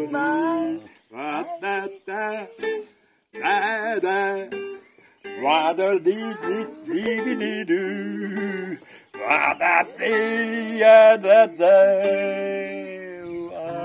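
A man singing while strumming a small acoustic guitar; the music cuts out briefly a few times.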